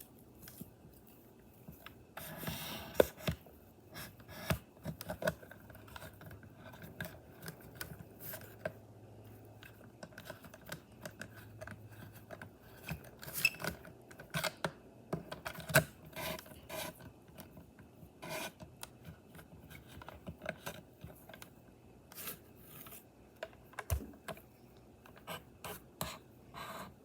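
Small plastic parts and packaging of a toy remote-control car being handled: scattered clicks and taps, with a longer rasping rub about two seconds in.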